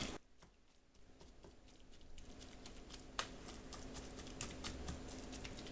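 Black plastic slotted spoon mashing pumpkin in a stainless steel saucepan: faint, quick light taps and clicks of the spoon, starting after a near-silent first second, with one sharper tap about three seconds in.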